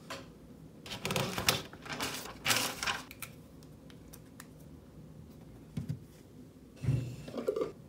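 Typing on a laptop keyboard in a few short bursts of key clicks, with quiet pauses between them.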